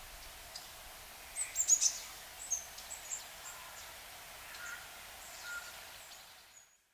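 Outdoor ambience with small birds chirping: a cluster of short high calls about one and a half seconds in, then scattered calls over a steady hiss, fading out near the end.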